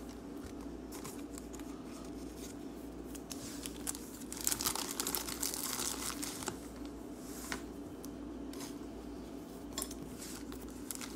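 Foil trading-card pack wrappers crinkling and tearing as packs are ripped open and the cards are pulled out, in irregular crackly bursts, busiest near the middle.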